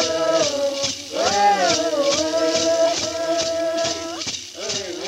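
Avá Guaraní ceremonial chant: long sung notes that glide and hold, over a rattle shaken in a steady beat of about two shakes a second. The singing breaks off briefly a little after four seconds in, while the rattle keeps going.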